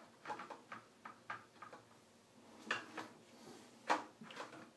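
Faint, scattered clicks and light knocks of shaving gear being handled at a bathroom counter, about a dozen small taps with the loudest near the end.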